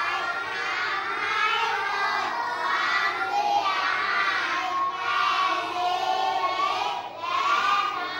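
A class of young children reciting aloud in unison in Thai, their many voices blending into one continuous chant as they read out a definition from a slide.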